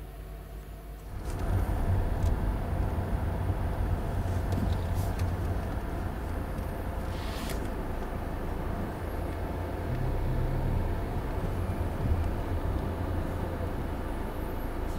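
Car engine and tyre rumble heard from inside the cabin, rising about a second in as the car pulls away, then running steadily as it drives on.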